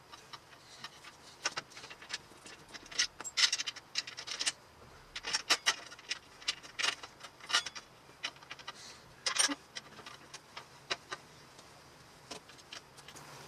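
Irregular light clicks and clinks of small hardware and hand tools being handled during work on a motorcycle, coming in scattered clusters.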